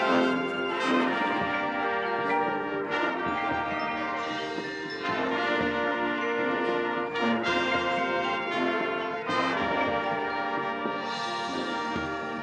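High school marching band performing, the brass section (trumpets, trombones, horns) playing sustained chords with changing notes and accented attacks.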